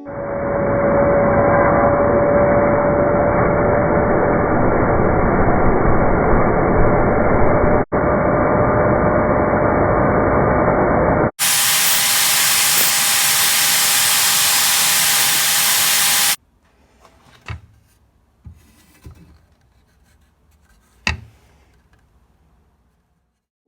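A woodworking power tool running, a loud steady noise with a steady whine, broken off abruptly twice and ending about sixteen seconds in; then a few light knocks and taps.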